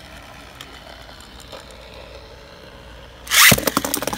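A Beyblade top whirring as it spins on a plastic stadium floor. About three seconds in comes a sudden loud rush as a second top enters the stadium, then rapid clicking as the tops clash.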